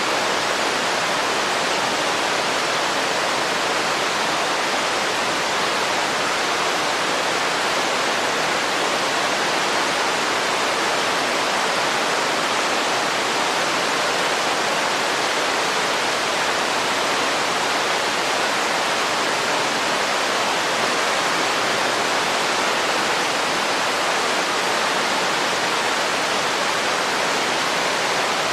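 Running water rushing steadily, an even hiss with no splashes or changes.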